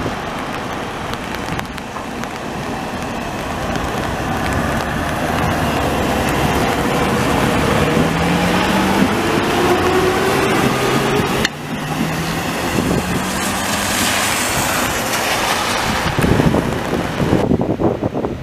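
Old Ganz UV tram rolling past on wet rails through a curve, over a steady wet hiss, with a whine that rises in pitch from about halfway through.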